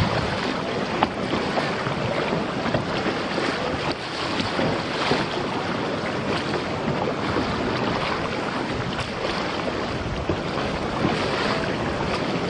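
Wind buffeting the microphone over splashing sea water around kayaks, a steady noisy wash with a few small knocks.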